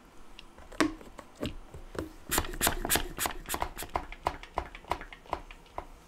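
Hands handling kitchen items: a run of irregular light clicks and taps that crowds together about two to three seconds in.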